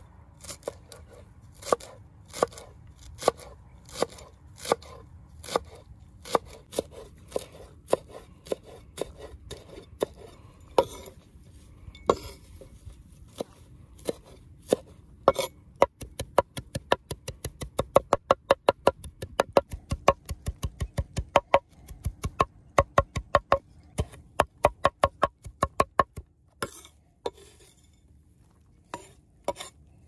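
Cleaver chopping a pile of fresh wild greens on a wooden board, each stroke a sharp knock on the wood. The chops come slowly and spaced at first, then speed up to several a second for about ten seconds past the middle, then slow to a few last strokes.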